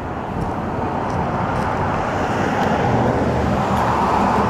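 Road traffic: a motor vehicle's running noise growing steadily louder as it approaches.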